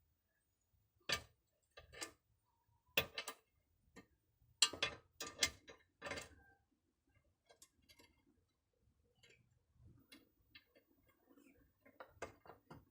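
Sharp, irregular clicks and taps from tools and metal hose parts being handled during a hydraulic hose repair. There are about ten in the first six seconds, some in quick pairs, then faint light tapping and a few more clicks near the end.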